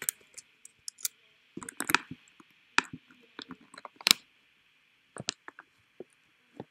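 Scattered, irregular clicks and taps from a computer's mouse and keyboard being worked, a dozen or so at uneven intervals, over a faint steady hiss.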